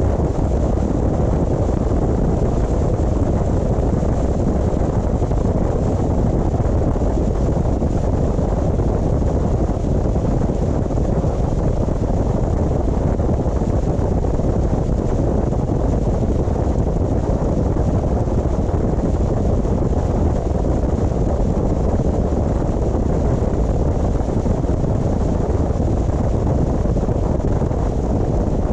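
Steady road and wind noise from a car driving at a constant pace, a low even rumble that does not change.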